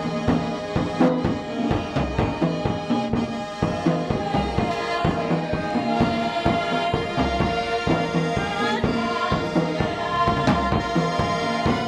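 Small live band playing a song: accordion and oboe holding melody notes over a drum kit's steady beat.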